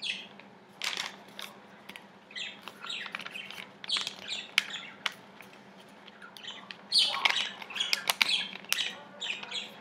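A sheet of scrap paper being folded by hand: it rustles and crinkles in irregular bursts, with sharp crackles, busiest about a third of the way in and again near the end.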